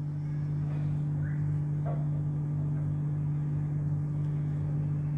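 A steady low hum from a motor or appliance, with a few faint soft rustles of a spring roll wrapper being rolled by hand on a wooden board.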